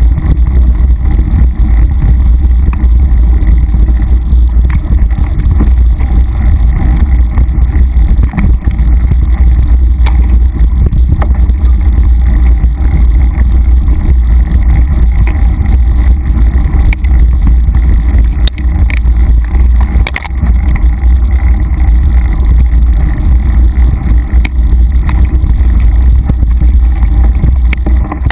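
Mountain bike rolling over a dirt singletrack, heard through a bike-mounted camera: a loud, steady low rumble of wind and vibration on the microphone, with scattered clicks and rattles from the bike bumping over the trail.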